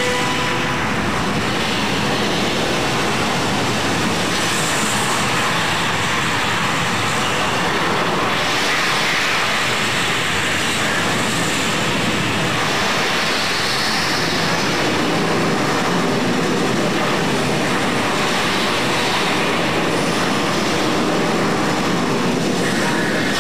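Steady, dense rocket-engine noise of a Space Shuttle launch, heard from launch footage played through a display screen's speakers.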